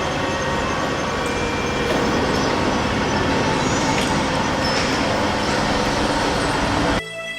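Steady running noise of a Berlin city train moving along the track, with a few faint steady whining tones over it. It cuts off abruptly near the end.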